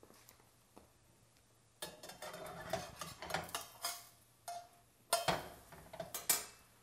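Metal spatula scraping and clinking against a stainless steel frying pan as it is worked under a pancake and flips it. The scraping starts about two seconds in, with sharper clinks near the end as the pancake is turned.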